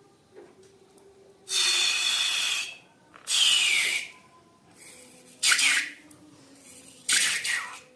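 Balloons being emptied through their necks in four hissing bursts, some with a squeal that falls in pitch as the balloon runs empty.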